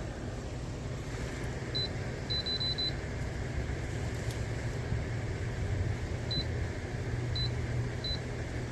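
Short high electronic beeps from an electric fireplace heater's controls: one, then four in quick succession, then three more spaced about a second apart. Under them runs a steady low hum.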